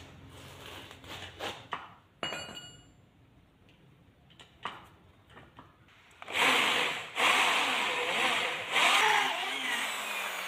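Electric hand drill boring through a thin galvanized metal sheet, running loud in three stretches with short pauses from about six seconds in. Before it, a few light clicks and one short metallic ring.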